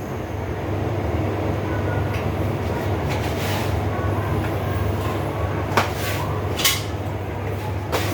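A steady low rumble with a few sharp clicks or knocks in the second half.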